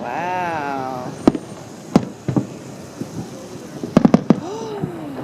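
Fireworks going off in a string of sharp bangs, with a quick cluster of several about four seconds in. A spectator's long drawn-out "ooh" rises and falls at the start, and another comes near the end.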